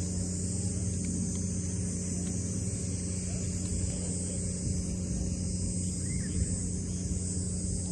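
A steady low motor hum, like an engine running at a constant speed, with an even hiss above it.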